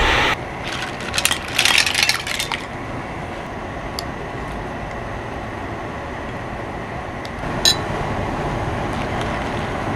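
A cast-iron pot of clam soup boiling: a quick run of crackling pops and clinks in the first couple of seconds, then a steady hiss, with a single tick about four seconds in and again near eight seconds.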